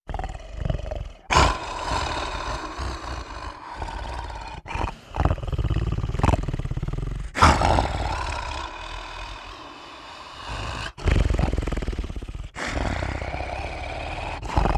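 Sound-effect monster growling: a run of rough, rumbling growls and roars, several breaking in abruptly, with a quieter stretch about two-thirds of the way through.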